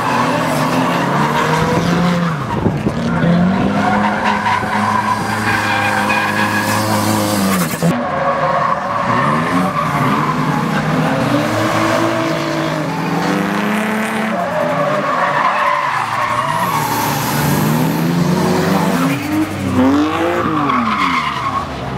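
Drift cars sliding through the course, their engines revving up and down over and over while the rear tyres squeal and screech in a continuous slide.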